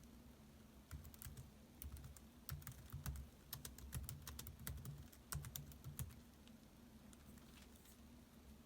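Laptop keyboard keys typed in quick, irregular runs of clicks, stopping about six seconds in, over a faint steady hum.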